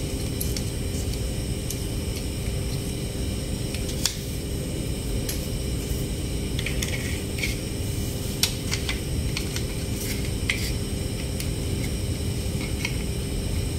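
Scattered light clicks and taps of small plastic toy trucks being handled, over a steady low hum.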